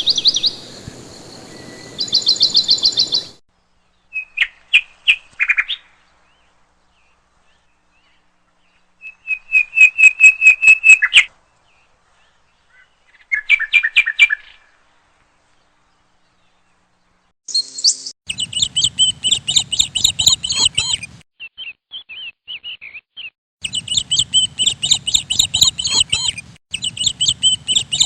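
Small birds chirping in separate bursts of fast, high-pitched repeated notes, split by several seconds of dead silence; the longest bursts, in the second half, run about three seconds each.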